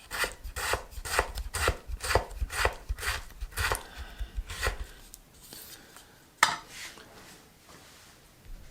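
Knife chopping on a cutting board in a steady rhythm of about two strokes a second, stopping after about five seconds, followed by one sharper knock about six and a half seconds in.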